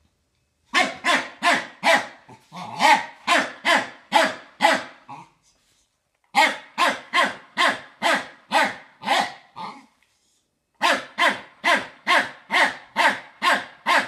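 Smooth fox terrier barking at a vacuum cleaner in three runs of quick, sharp barks, about two to three a second, broken by two short pauses.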